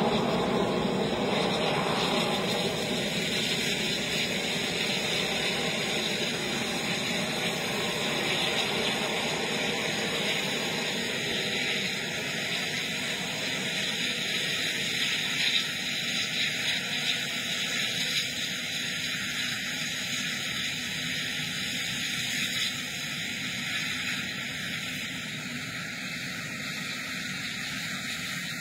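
Anti-aircraft missile's rocket motor heard from the ground as a steady rushing noise, slowly fading as the missile flies away.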